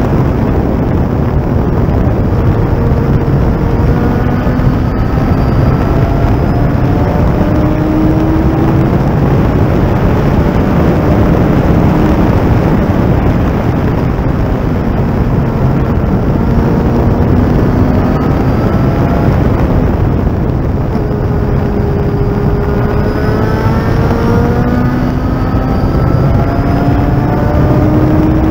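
Thunder Roadster race car's engine at racing speed, under heavy wind and road noise. Its pitch climbs repeatedly over a few seconds, breaks off and starts climbing again, as it pulls through the gears.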